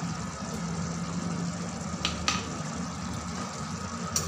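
Watery potato curry boiling in an uncovered kadai, a steady bubbling hiss. A few light clicks about two seconds in and near the end, as a spatula touches the pan.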